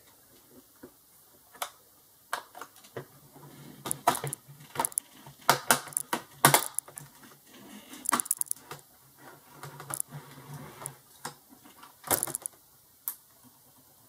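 Plastic clips of a Toshiba Satellite L655 laptop's top case clicking and snapping as the case is pried up by hand: a string of irregular sharp clicks, thickest from about four to seven seconds in and again near the end.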